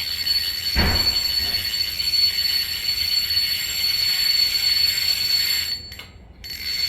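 Mechanical alarm clock bell ringing continuously, its striker rattling fast against the bell. It cuts off about a second before the end and starts again briefly. A short thump about a second in.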